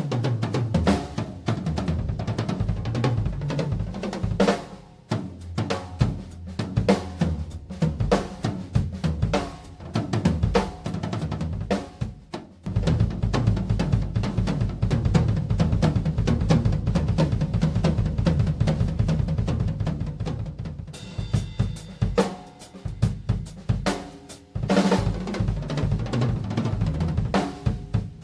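Tama Starclassic Bubinga Elite drum kit played solo: bass drum, snare, hi-hat and cymbals in busy fills. From about halfway through comes a long run of rapid, dense strokes with a heavy low end. It thins out for a few seconds, then builds up again near the end.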